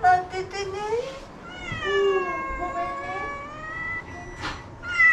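Domestic cat meowing insistently, begging for food: a quick run of short meows, then one long, drawn-out meow that dips and rises in pitch, and another meow starting near the end.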